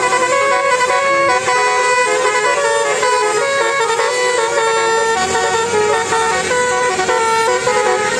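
A bus's Basuri-type telolet musical horn playing a tune, its loud held notes stepping from pitch to pitch throughout.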